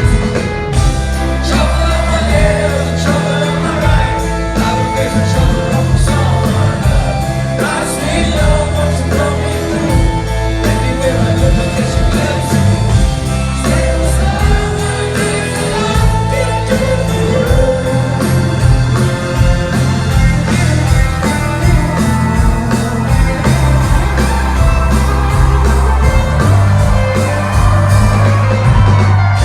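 Rock band playing live with a lead singer, over heavy drums and bass, in a concert hall.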